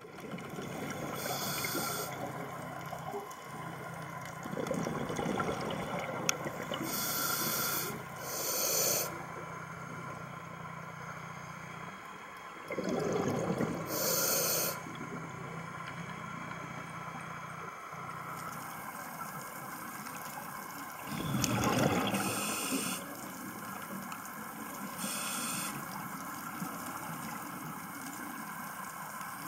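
Scuba diver breathing through a regulator underwater: short hissing inhalations every few seconds and bubbling exhalations, over a steady watery hiss.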